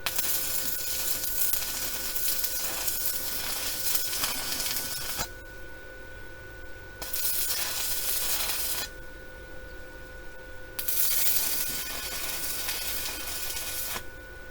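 Stick welding: an inverter welder's arc crackling and hissing as a rod burns onto the steel mower deck, in three runs of about five, two and three seconds, each stopping abruptly when the arc is broken.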